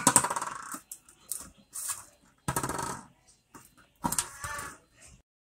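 A series of short clinks and rattles coming in several separate bursts.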